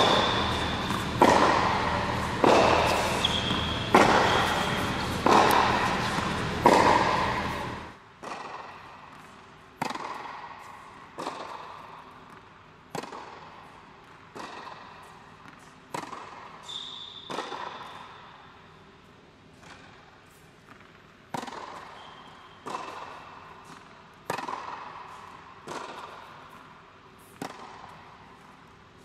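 Tennis ball rally on an indoor hard court: racket strikes and ball bounces every second or so, each echoing through the hall, with a few short high squeaks. The hits are louder, over a low hum, until about eight seconds in.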